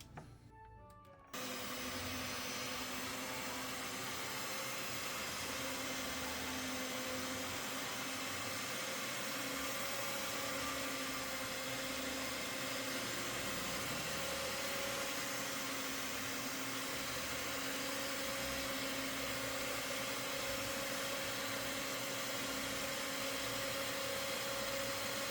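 Electric mixer switched on about a second in, running steadily as it creams butter and sugar, a constant motor whine with a low hum.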